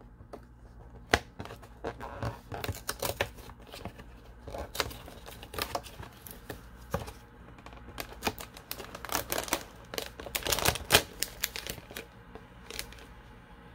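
Fingernails clicking and scraping on a cardboard advent calendar as a perforated door is pried open and a foil tea sachet is pulled out, an irregular run of sharp clicks and short rustles that grows busiest about ten seconds in.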